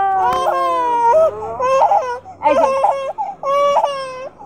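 Toddler crying loudly in a string of wailing cries, the first one long and falling in pitch.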